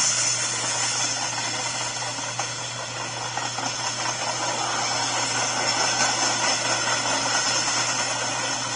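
Freight train boxcars rolling past on the track: a steady noise of steel wheels on rail.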